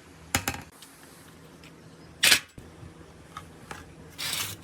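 Marble-run pieces being handled and set in place: a couple of light clicks early on, a sharp clack about two seconds in, and a short rasping noise near the end.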